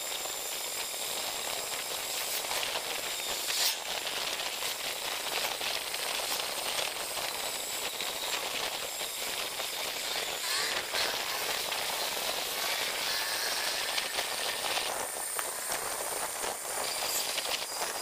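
Steady hissing rush of wind and tyre noise from a bicycle riding on a paved road, with small clicks and rattles from the bike now and then.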